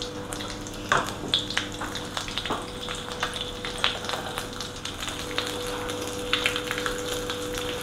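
Dried anchovies (ikan bilis) frying in hot oil in an aluminium wok, a steady sizzle scattered with small pops and crackles as they are fried until crisp.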